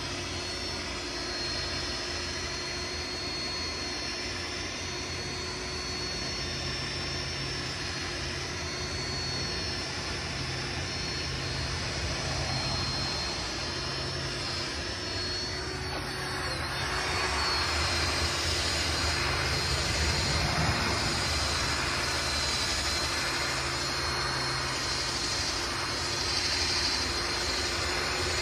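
Cordless DeWalt drill spinning a buffing pad against a plastic headlight lens, its motor whining steadily. The sound grows louder and rougher about halfway through.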